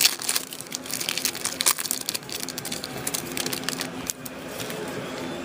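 Trading card packs and cards being handled: a quick run of crinkling, rustling clicks that stops about four seconds in.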